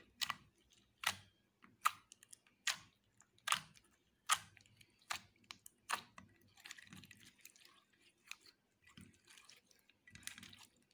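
Slime being mixed and pressed by hand, giving sharp wet pops about one every 0.8 seconds for the first six seconds, then softer, crackly squishing.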